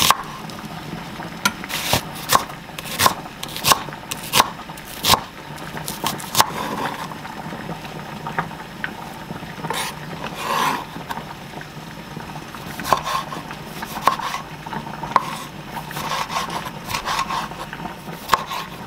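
Chef's knife slicing through onion and knocking on a wooden cutting board, sharp knocks about every two-thirds of a second, then a softer break in the middle. Later the knife strokes start again as cherry tomatoes are halved on the board.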